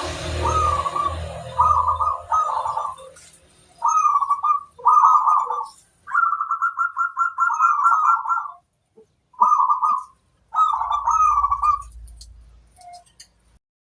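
Zebra dove (perkutut) cooing: a run of short, rolling coo phrases with brief pauses between them, one longer, faster phrase about six seconds in.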